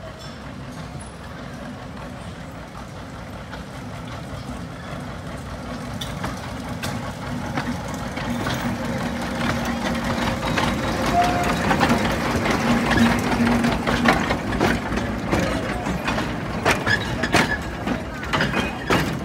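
Small narrow-gauge diesel locomotive hauling open carriages draws near and passes, its engine hum growing louder. Wheels click and clank over the rail joints as the carriages go by in the second half.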